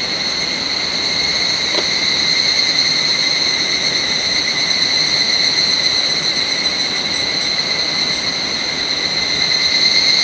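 Chorus of cicadas in the forest canopy: a loud, steady, high-pitched drone that never breaks.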